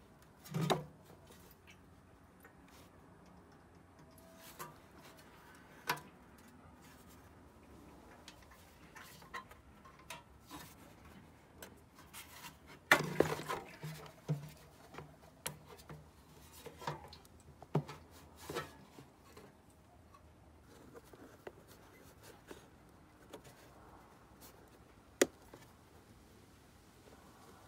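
Hands handling a Honda Ruckus scooter's metal fuel tank and surrounding parts: scattered knocks, clunks and rubbing. There is a loud thump about half a second in, a run of knocks and rattles around the middle, and a sharp click near the end as a plastic cover's door is opened.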